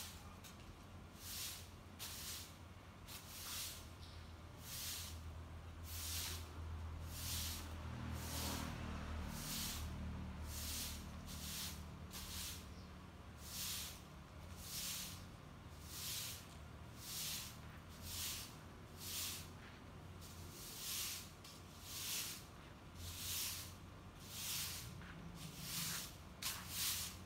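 A long-handled soft broom sweeping over stone paving tiles, a steady run of brushing swishes about one stroke every second.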